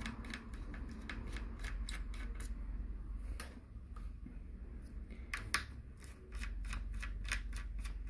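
Small screwdriver working the screws that hold a laptop hard drive in its bay: a string of irregular light clicks and ticks of metal tip on screw heads and handling of the drive, over a faint low hum.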